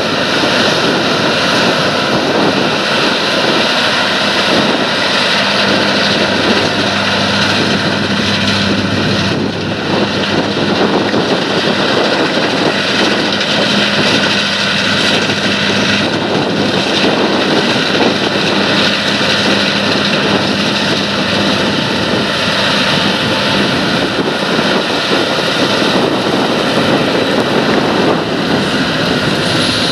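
John Deere S690i combine harvester working through wheat: a steady, loud engine drone mixed with the rushing clatter of the header and threshing machinery, with a constant low hum underneath.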